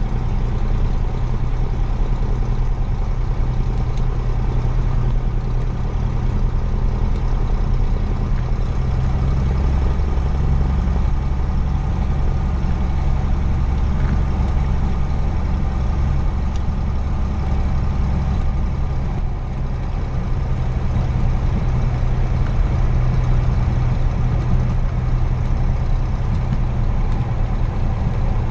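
Cessna 172's single piston engine and propeller running steadily on the ground, heard from inside the cockpit as a deep drone.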